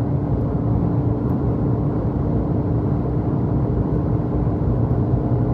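Suzuki Jimny's cabin noise at highway speed: a steady mix of engine drone and road and wind rush, with a faint constant hum running through it.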